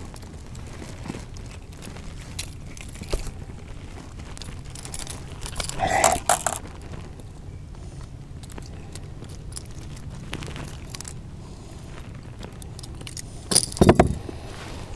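Metal clicking and jingling of fishing pliers against a lure's treble hooks while a hooked small fish is worked free, with louder clattering about six seconds in and again near the end.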